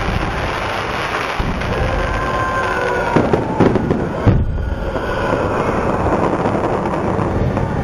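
A dense fireworks barrage: continuous crackling, with several loud booms a little past halfway and faint falling whistles just before them.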